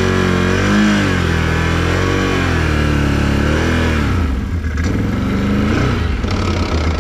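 Can-Am Renegade XMR 1000 ATV's V-twin engine revving up and down as the quad rides through a muddy puddle, its pitch rising and falling several times and easing off about four seconds in.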